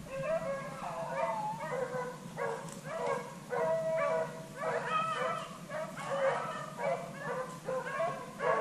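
A pack of beagles baying in chorus, many overlapping calls with no break, the sound of hounds running a rabbit.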